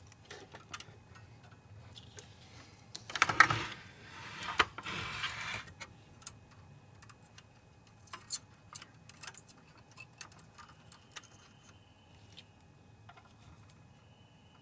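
Small hard parts and tools being handled: scattered clicks and light rattles, with two louder scraping, rustling stretches about three and five seconds in.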